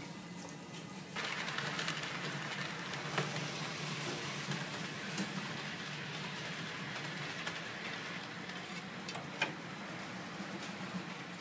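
HO-scale model train running on the layout's track: a steady whirring hiss over a low hum that grows louder about a second in, with a couple of sharp clicks.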